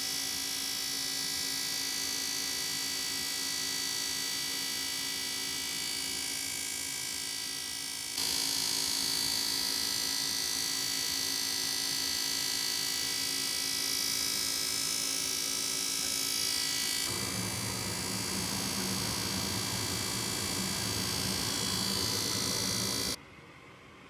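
Goodman gas furnace's draft inducer fan running with a steady hum made of many layered tones, the noise that shows the inducer motor needs replacing. The sound shifts twice, about 8 and 17 seconds in, and stops abruptly about a second before the end.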